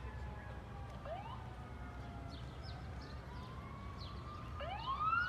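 Emergency vehicle siren wailing, faint at first with a short rising sweep about a second in, then a louder wail that rises in pitch near the end, over a steady low rumble.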